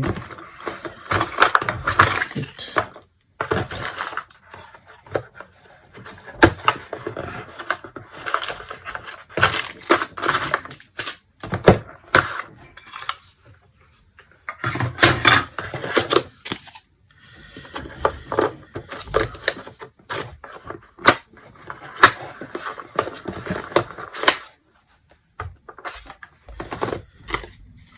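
Hands rummaging through the doorbell's packaging and handling its plastic parts and covers: irregular clicks, light clatter and rustling, broken by a few short pauses.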